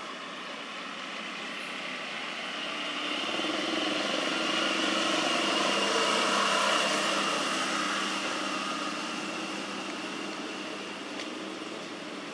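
A motor vehicle passing on the road: its sound builds over the first few seconds, peaks about halfway through, then fades away.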